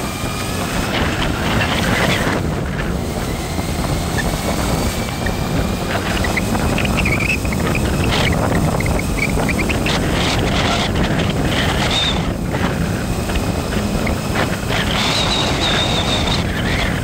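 Steady road and wind noise of a moving vehicle, with faint high whines coming and going and a brief steady high whine near the end.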